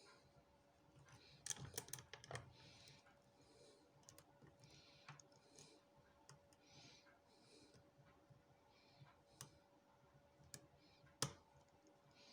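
Faint scraping of a lock pick and tension wrench in the keyway of a Union 5-pin rim cylinder, broken by small metallic clicks as the pins are worked, with a sharper single click near the end.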